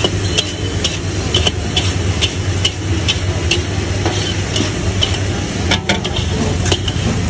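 Metal spatulas scraping and clanking against a large wok as soya chunk manchurian is stirred and tossed, in irregular strikes about two a second. A steady low hum runs underneath.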